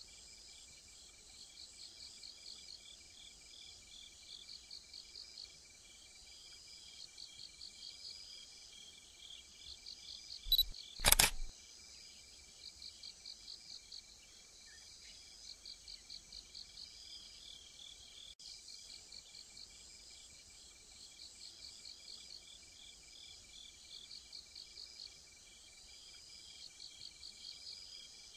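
Crickets chirping outdoors in short repeated trains of pulses, over a faint steady high tone. A brief loud knock about eleven seconds in.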